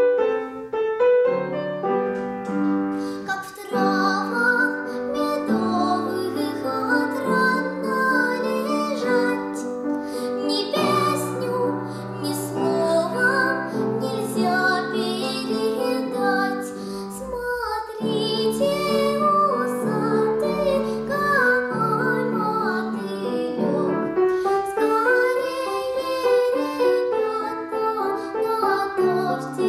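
A young girl singing a classical (academic-style) song to upright piano accompaniment, the voice holding and gliding between notes over the piano chords.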